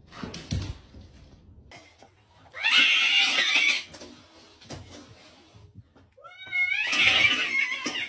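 A cat giving two long, loud meows. The first comes about two and a half seconds in, and the second starts about six seconds in with a rising pitch.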